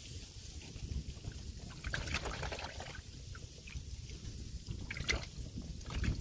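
Water lapping and trickling against the hull of a small boat, with a low steady rumble underneath. A few short splashy bursts come around two and five seconds in.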